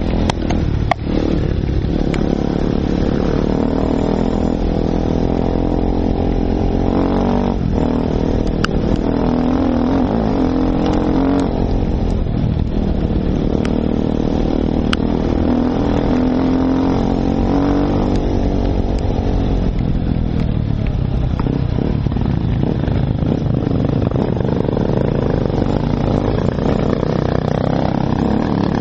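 Enduro dirt bike's engine, heard from on the bike, rising and falling in revs as it rides a rough dirt trail, with the revs climbing near the end. A few sharp knocks come from the rough track.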